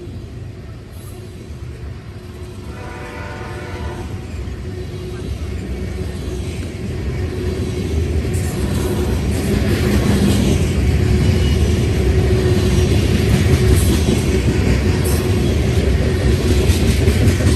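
Freight train of ethanol tank cars rolling past at close range: a low rumble of wheels on rail that grows steadily louder, with repeated clicking from wheels over the rail joints and a steady tone above the rumble. A faint, brief train-horn sound comes about three seconds in.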